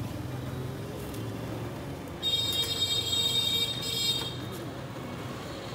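Street traffic running in the background, with a vehicle horn sounding a shrill, steady tone for about two seconds, starting about two seconds in.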